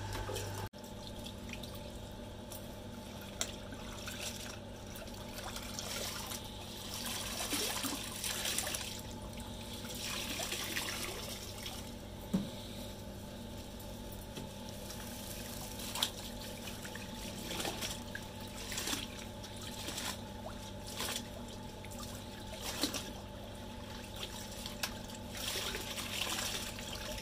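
Clothes being rinsed by hand in a plastic tub: water splashing, trickling and dripping as wet garments are dunked and lifted out, with a few sharp knocks. A steady low hum runs underneath.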